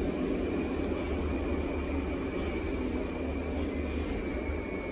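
Moscow metro train running: a steady rumble with a faint, steady high-pitched whine.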